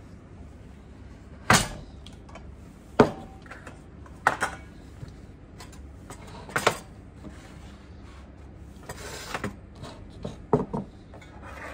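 Wooden boards, a tray and bamboo sushi mats being set down and handled on a wooden table: several separate sharp knocks and clatters, the loudest about one and a half and three seconds in, with a short brushing noise about nine seconds in.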